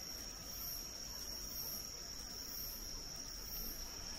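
Faint chorus of night insects: a steady, high, unbroken trill, with a fainter and higher chirp repeating about once a second.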